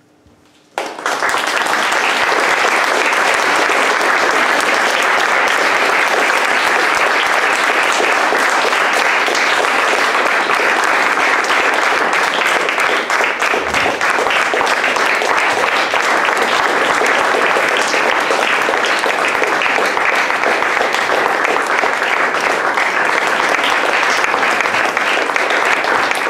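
Audience applause, dense steady clapping that starts suddenly about a second in.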